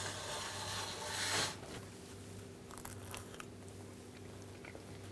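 Mayonnaise squirted from a Hellmann's squeeze bottle, a hissing, sputtering spurt that swells and cuts off after about a second and a half. Soft biting and chewing clicks follow over a steady low hum.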